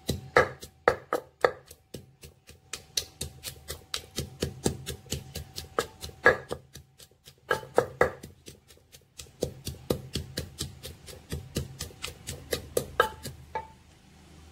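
Wooden pestle pounding chilies, garlic and long beans in a clay mortar: quick, sharp knocks, about four a second, broken by a few brief pauses and stopping shortly before the end.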